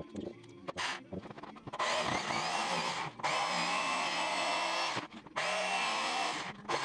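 Jigsaw cutting plywood. After a brief burst about a second in, the saw runs from about two seconds in, in three stretches broken by short pauses, its motor whine wavering in pitch as it cuts.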